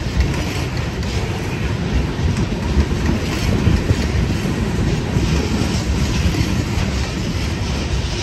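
Loaded freight cars of a freight train rolling past, a steady rumble with many rapid, uneven clacks from the wheels on the rails.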